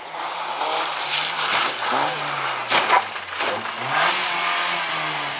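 Rally car engine at high revs on a gravel stage, the revs falling about two and a half seconds in and climbing again as it takes the corner, with gravel spraying and crackling under the tyres.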